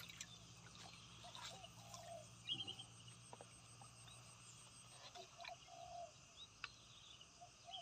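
Near silence with faint, short animal calls a handful of times, and a few brief higher chirps.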